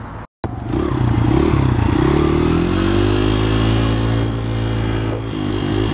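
Dirt bike engine running as the bike is ridden, coming in just after a brief dropout about half a second in. Its pitch rises and falls at first, then holds fairly steady.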